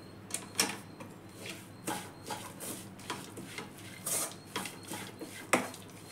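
Metal spatula scraping and knocking against an aluminium kadai while stirring a thick, dry mixture of grated raw mango and coconut, in short irregular strokes.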